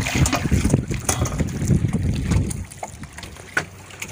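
Wind buffeting the microphone on a small boat, a dense low rumble for the first two and a half seconds, then dropping away to a quieter low steady hum.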